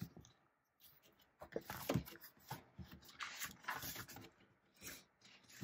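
Faint, irregular paper rustling and scraping as a large paperback picture book is handled and opened, its cover and pages brushing and turning.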